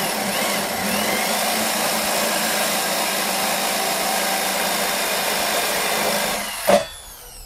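Total 850 W corded drill running steadily with a spade bit boring into a wooden board, the motor working well within its power. The trigger is released about six seconds in and the motor whines down, with a brief loud sound just after.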